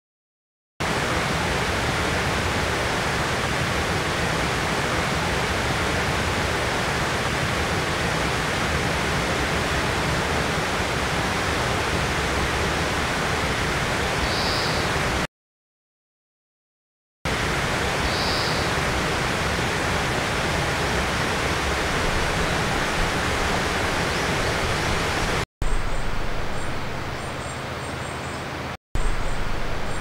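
Steady, even rushing noise in two long stretches, cut off abruptly and broken by about two seconds of silence, with a faint brief high note just before and just after the gap. Near the end the noise turns quieter and a few thin, high calls come through.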